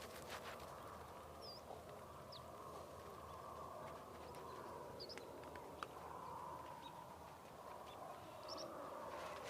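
Faint sheep-farm ambience: a low steady background with a few short, high bird chirps scattered through it.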